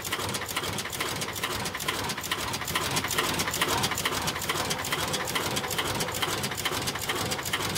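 Automatic LED assembly machine running with a steady, rapid mechanical clatter of closely spaced clicks.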